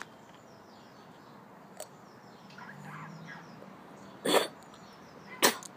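Two short, forceful bursts of breath from a boy's mouth, one about four seconds in and a sharper one near the end, as he coughs and blows against a mouthful of dry ground cinnamon.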